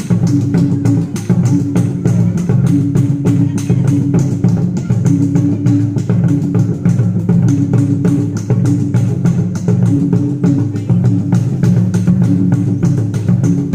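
Loud percussion music accompanying a mangaru dance. Fast, even drumbeats come about five a second over a low held tone that breaks off and returns every second or so.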